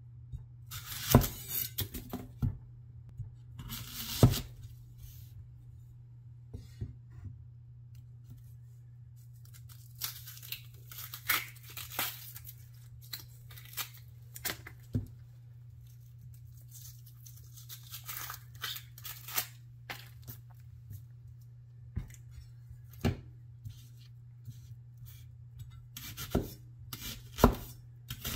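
Dry papery skin of a red onion being peeled and torn off by hand, in several crackling stretches, with scattered sharp knocks on a wooden chopping block. Near the end a Chinese vegetable cleaver strikes through the onion halves into the block a few times. A steady low hum runs underneath.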